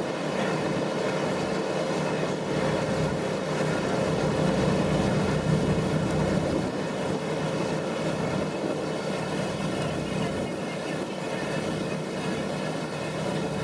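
Boat engine running steadily, a constant drone that holds the same pitch throughout.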